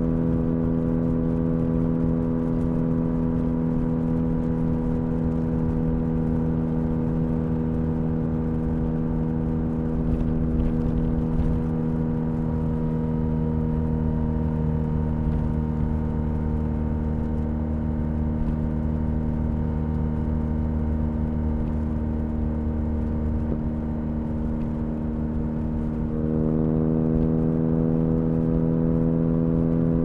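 BMW R1250RS boxer-twin engine running steadily under way, heard through a seat bag with little wind noise. About 26 seconds in, the engine note steps up in pitch and loudness as the throttle opens.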